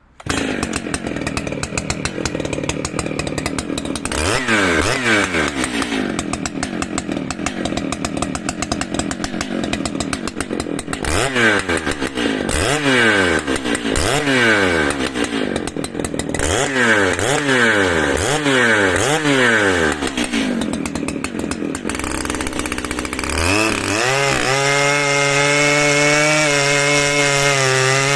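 Big-displacement chainsaw engine being blipped through repeated quick revs that rise and fall in pitch. Near the end it is held at a steady high full-throttle pitch.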